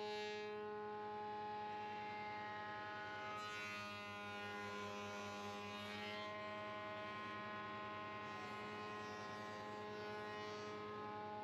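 Sedgwick spindle moulder running steadily with a power feeder, a constant hum with many overtones. A wooden post cap held in a jig is fed past the cutter, with two stretches of cutting noise, about three and a half and eight seconds in.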